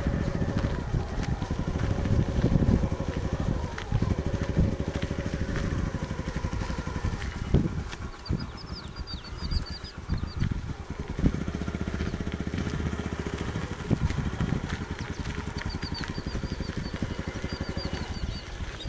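A small engine running steadily with a fast even pulse, the loudest sound throughout. A bird chirps in short runs twice, about halfway and again near the end.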